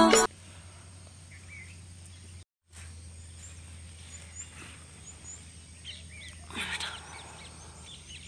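Small birds chirping faintly here and there over a quiet rural background, with a brief rustle about two-thirds of the way through.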